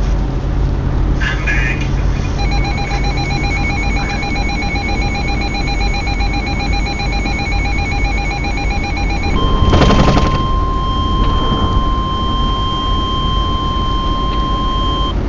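A weather radio receiver's rapidly pulsing electronic alert beep sounds for about seven seconds, then a loud burst of static. After that comes the steady single-pitch NOAA Weather Radio warning alarm tone, which signals that a new warning is about to be broadcast. Radio hiss runs underneath.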